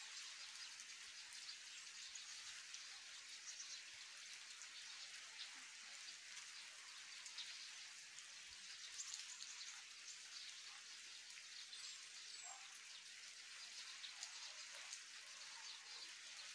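Steady rain falling, a faint hiss dotted with many small drop ticks.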